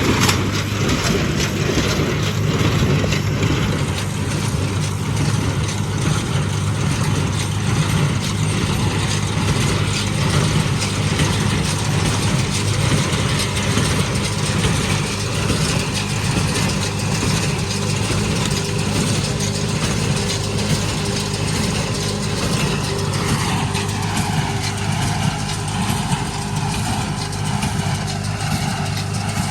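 Case 830 LP tractor engine running steadily while pulling a New Holland 282 square baler, with the baler's machinery working along with it. A higher steady tone joins in near the end.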